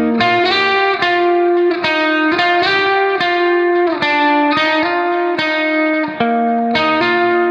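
Background music: a guitar melody, its notes changing several times a second.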